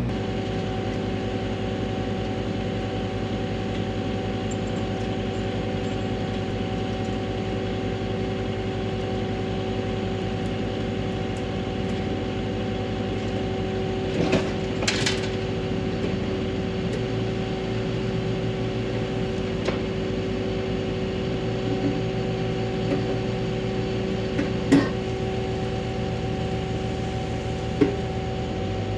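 An engine running steadily at a constant speed, close by, with a few short knocks and clinks over it.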